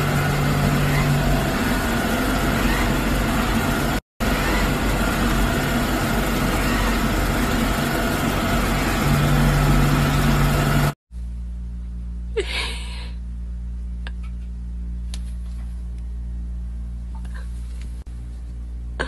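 Robot vacuum cleaner running, a loud steady mechanical noise with a short dropout about four seconds in. It cuts off abruptly about eleven seconds in, leaving a quieter low hum with a couple of brief rustles.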